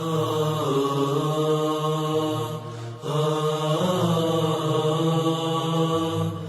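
Islamic devotional chant played as a ringtone: a chanted vocal line over a steady held drone, in two phrases with a short dip between them.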